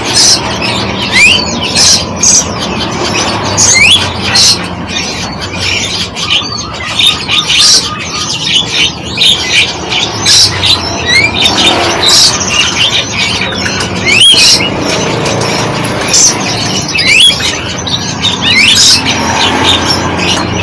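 A dense mixed chorus of birds chirping and squawking, with loud sharp calls and short rising whistles repeated every second or two.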